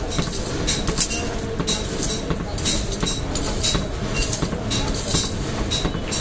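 Charcoal forge being blown, a steady rumble with a regular high click about twice a second, as a metal rod stirs and scrapes the burning coals.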